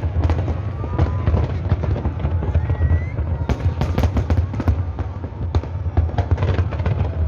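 Large fireworks display: many shells bursting in rapid succession, a dense, continuous mix of crackling and deep booms.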